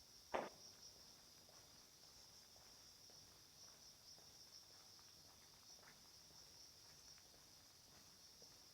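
Faint, steady high-pitched chirring of insects such as crickets, with one sharp knock about a third of a second in and a few faint ticks after it.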